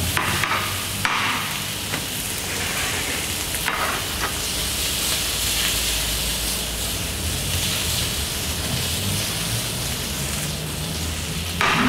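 Prawns and asparagus sizzling steadily in a very hot sauté pan of olive oil and melted butter, with a few short louder bursts in the first few seconds as the pan is stirred.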